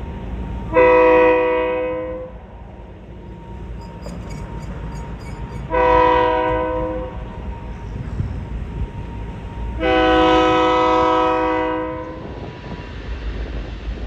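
Diesel locomotive air horn sounding three long blasts of a multi-note chord as the train nears a road level crossing, the last blast the longest, over a low continuous rumble.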